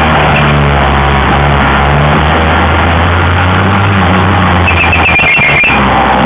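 Racing Vespa scooters' two-stroke engines buzzing loudly and steadily as a pack rides through the course.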